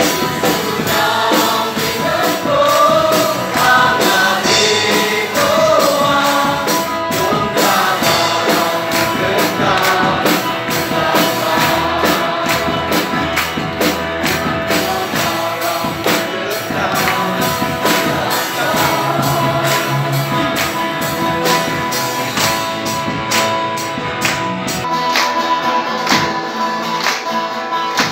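A group sings a gospel worship song over a band with acoustic guitar, with a steady beat of hand claps.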